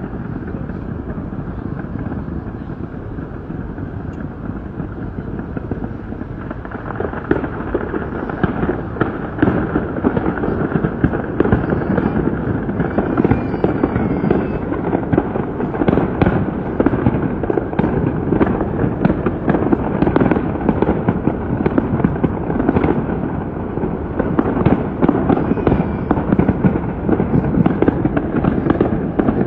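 Aerial fireworks going off in a dense, continuous crackle of many rapid pops and bangs, which grows louder and busier about seven seconds in.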